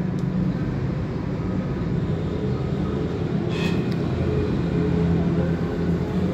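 A steady low machine hum, with a brief scratchy rustle about three and a half seconds in.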